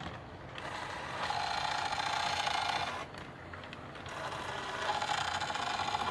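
Lionel E33 O-gauge model electric locomotive making a strange mechanical rasping noise with a steady mid-pitched whine in it, twice, each time for about two and a half seconds.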